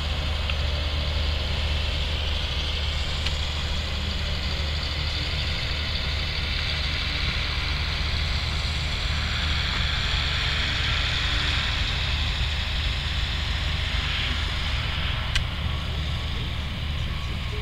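John Deere farm tractor's diesel engine running steadily at close range, a deep even drone with a higher hiss over it. A single sharp click about fifteen seconds in.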